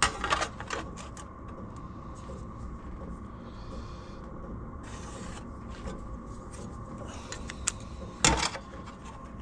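Light handling noises while an aluminium sheet panel is marked out: a few quick clicks and taps in the first second, soft rubbing, and one sharp knock near the end, over a steady faint hum.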